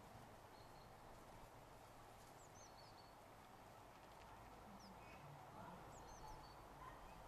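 Near silence: faint outdoor ambience with a few short, high bird chirps scattered through.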